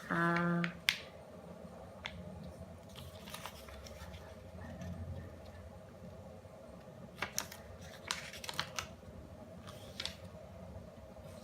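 Square sheet of origami paper being folded and creased by hand: faint rustling with a few sharp crisp clicks and crackles in the second half. A brief held vocal sound at the very start.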